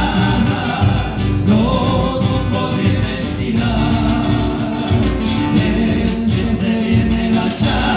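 Live Argentine folk music: several men singing together over strummed acoustic guitars, with a bombo legüero drum keeping a steady low beat.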